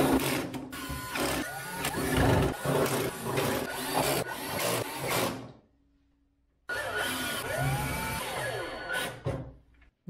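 Cordless drill driving screws into a microwave's sheet-metal cover in repeated short trigger pulls, the motor's pitch rising and falling with each pull. It stops for about a second around six seconds in, then resumes.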